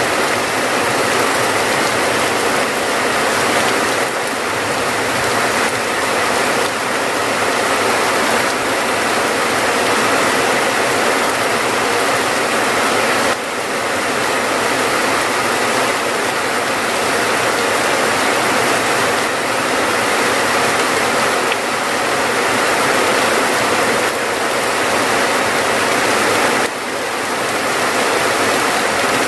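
Steady rain falling, a dense even hiss of drops, with a brief dip in level about halfway through and again near the end.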